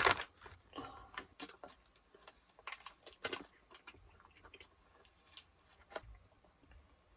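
Close-up eating sounds: irregular wet smacks and clicks of a person chewing food, louder in the first few seconds and sparser later.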